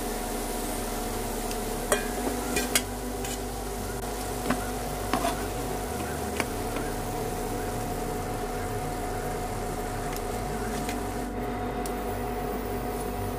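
Steady electrical buzzing hum from an induction cooktop heating a pan of oil, with a few sharp clicks of a steel spatula against the nonstick pan in the first five seconds or so as fried cutlets are lifted out.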